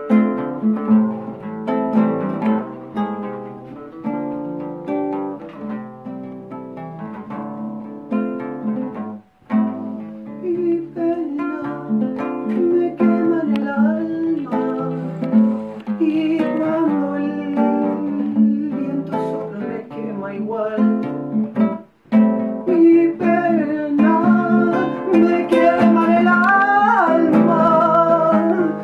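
Music: a song led by plucked and strummed acoustic guitar, with two brief drops to near silence about nine and twenty-two seconds in.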